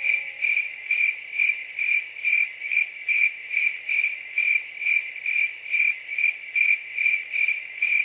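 Insect chirping like a cricket's: one high, even chirp repeated steadily about two and a half times a second.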